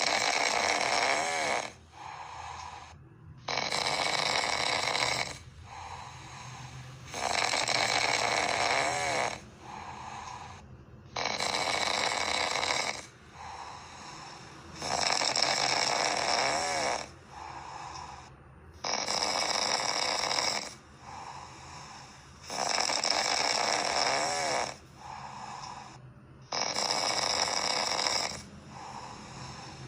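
A sleeping dog snoring in a steady rhythm. A loud, rasping snore of about two seconds alternates with a quieter breath, the cycle repeating roughly every four seconds.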